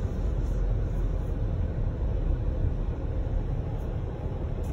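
Steady low rumble of a car's engine and tyres heard from inside the cabin as the car moves slowly.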